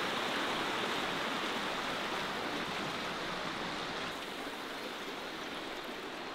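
Shallow river rushing over rocks and riffles, a steady rush of water that drops a little in level about four seconds in.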